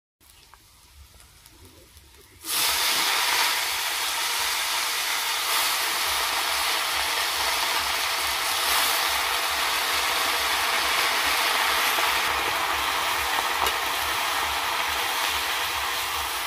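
Chopped mustard greens sizzling in hot oil in a kadhai over a wood fire: a loud, steady hiss starts suddenly about two and a half seconds in, as the leaves go into the pan, and keeps on while they are stirred.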